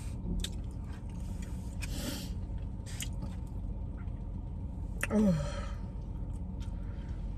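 A person chewing food, with scattered short wet mouth clicks, and a brief falling hum from the voice about five seconds in. A steady low hum of the car cabin runs underneath.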